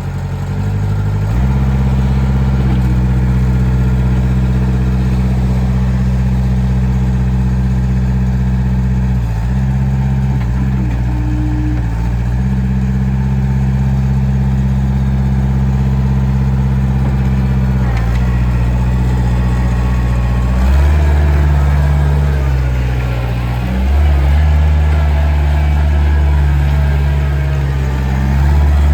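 Kubota diesel engine of a Gehl SL4625 skid steer running steadily, picking up speed about a second in and dipping briefly a few times. About two-thirds of the way through, the note becomes deeper and more uneven.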